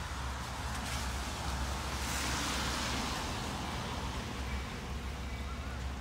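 Low steady rumble of an approaching diesel locomotive still some way off, under a broad hiss that swells about two seconds in and fades again.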